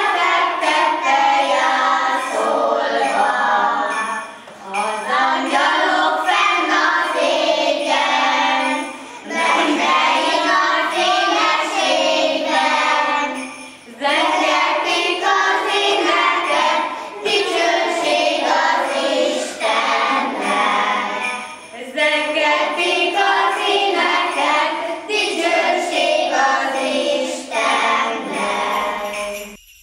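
Group of young children singing a Christmas carol together, in phrases of a few seconds each with short breaks between them.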